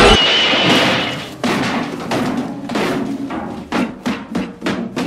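A run of sharp percussive knocks and thuds, roughly two a second, with faint music between them, after loud music cuts off at the start.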